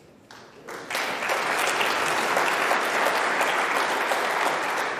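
Snooker audience applauding a pot, the clapping swelling up within the first second and then holding steady.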